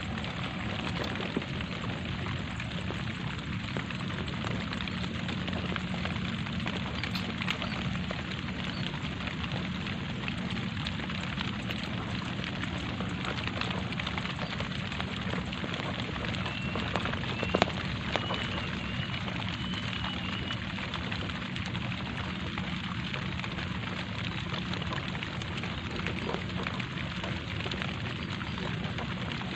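Light rain falling steadily on leafy vegetation and a wet rice field, a constant hiss dotted with the patter of single drops. Just past the middle a short run of faint high chirps is heard, and a couple of sharp taps stand out as the loudest sounds.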